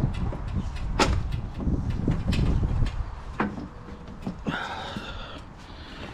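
Knocks and clanks of parts and tools being handled, with a few sharp strikes over a low rumble, then a short squeal about four and a half seconds in.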